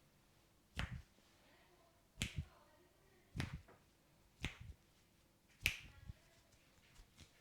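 Masseur's hands making five sharp snaps during an Indian head massage, a little over a second apart. Each snap has a dull thud beneath it, and some have a quick second hit.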